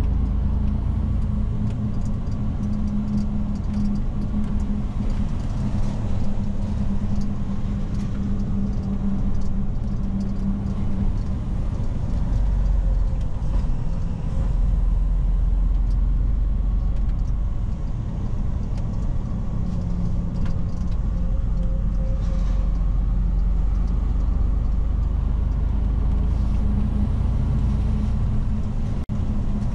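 Mercedes-Benz Arocs truck's 450 hp diesel engine running under way, heard from inside the cab with road noise: a steady low drone whose engine tone fades about eleven seconds in and returns later.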